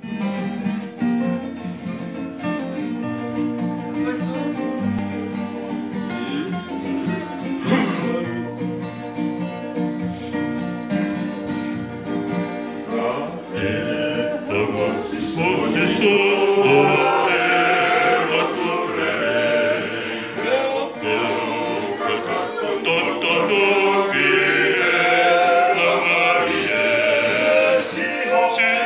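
Acoustic guitars and a ukulele strummed together while a group of men sing in Tongan. The singing grows louder and fuller from about halfway.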